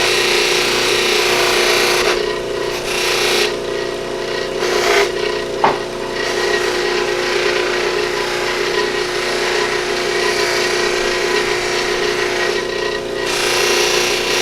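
Motor-driven buffing wheel running steadily while an antler piece is pressed against it and rubbed on the compound-loaded wheel. There is a short sharp tick about a third of the way in.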